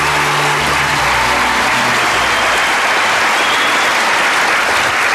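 Studio audience applauding, with background music fading out in the first two or three seconds.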